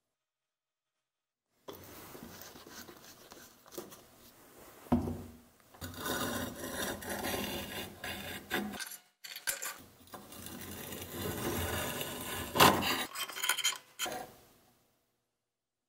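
Steel scraping and rubbing as a small dyed knife blank is worked by hand against a flat surface, in uneven strokes with short pauses. A sharp knock comes about five seconds in, and a louder one later on.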